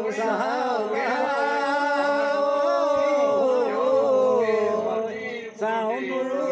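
A man chanting a ritual mantra in long, drawn-out sing-song notes, with a brief break about five and a half seconds in.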